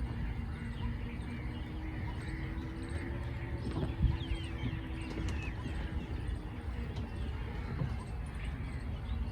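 Small birds chirping now and then over a steady low rumble and a faint hum, with a single knock about four seconds in.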